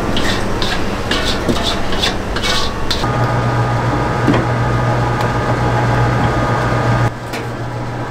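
Large commercial stand mixer with its beater churning a cream mixture in a steel bowl: scraping and splashing with scattered clicks at first, then a steady motor hum from about three seconds in, which drops in level about a second before the end.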